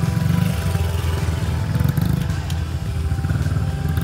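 Small Honda dirt bike's single-cylinder four-stroke engine running steadily as it rides past at low speed.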